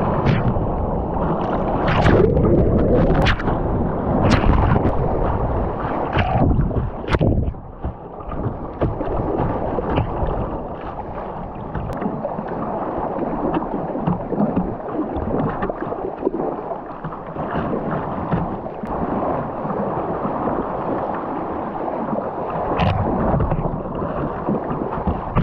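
River whitewater rushing close beneath a kayak's bow, with sharp splashes of water over roughly the first seven seconds, then a steadier, slightly quieter rush.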